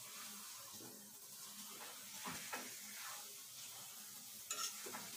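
Thick mango pickle sizzling faintly in a kadai while a metal spatula stirs and scrapes through it, with several scraping strokes in the middle and a few more near the end.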